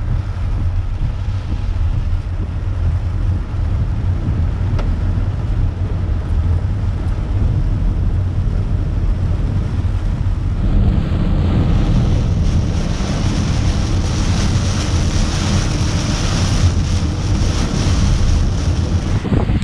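A car driving through torrential rain, heard from inside the cabin: a steady low rumble of tyres on the flooded road, with the hiss of rain and spray. The hiss grows louder about eleven seconds in.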